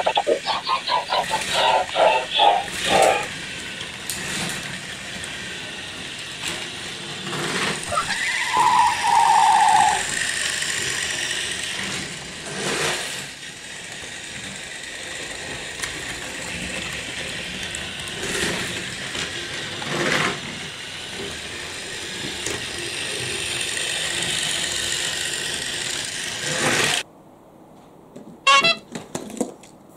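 Battery-powered toy trains running on plastic track: a steady motor whir with clicks and rattles, a quick run of clicking at the start, and a short buzzing tone about nine seconds in. The sound drops off abruptly near the end, followed by a few sharp clinks.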